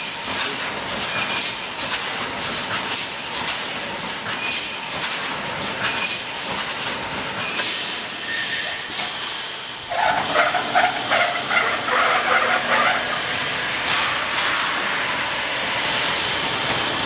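Automatic rebar mesh welding machine running: repeated sharp clacks and hiss as the welding heads fire across the mesh. About ten seconds in, a pulsing metallic rattle and squeal from the machine takes over.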